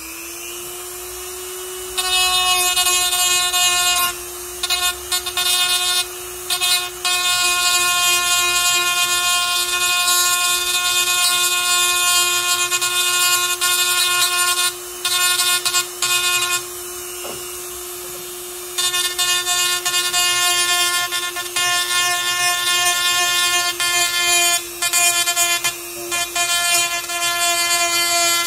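Handheld rotary tool running at a steady high whine, spinning freely for the first couple of seconds, then grinding the plastic rib off a Briggs & Stratton primer-bulb back plate in spells of several seconds, with short breaks where the bit is lifted off.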